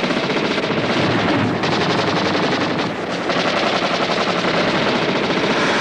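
Sustained rapid automatic gunfire, a dense run of shots with brief lulls about one and a half and three seconds in.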